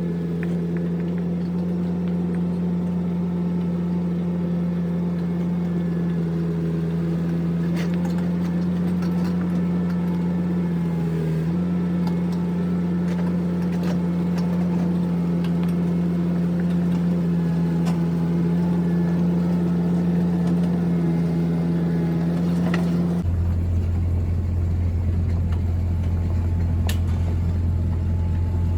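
An engine running steadily at a constant speed, with a few faint knocks and clicks over it; about 23 seconds in the sound changes abruptly to a lower, deeper steady hum.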